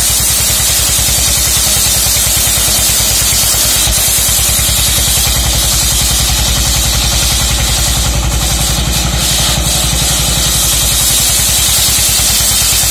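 Homemade circular sawmill's engine running steadily with a fast, even beat, with a constant high hiss from the spinning saw as a long timber beam is fed through it.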